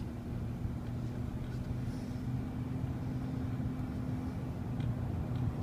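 Pickup truck driving, heard from inside the cab: a steady low engine hum and road rumble.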